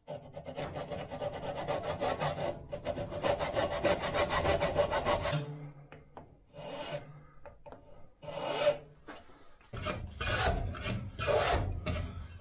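Hand tools working a wooden hammer handle clamped in a vise, a tenon saw and a file rasping across the wood. The strokes come rapid and unbroken for about five seconds, then as a few shorter separate strokes, and louder again near the end.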